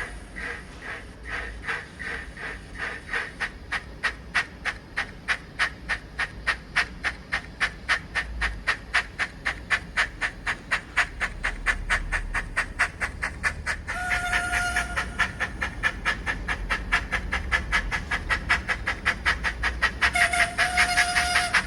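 Small steam locomotive sounds played by a model's DCC sound decoder through its tiny speaker: regular exhaust chuffs that quicken as the engine picks up speed. A short whistle blast sounds about two-thirds of the way through, and another starts near the end.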